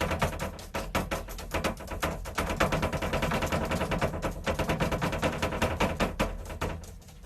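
A rapid, irregular clatter of sharp clicks or taps, many a second, going on without a break.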